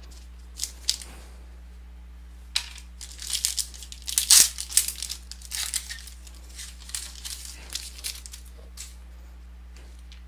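Foil trading-card pack being torn open and its wrapper crinkled in the hands. A couple of sharp crackles come about a second in, then a dense, irregular run of crinkling and tearing from about two and a half seconds to near the end, loudest around four seconds. A steady low electrical hum runs underneath.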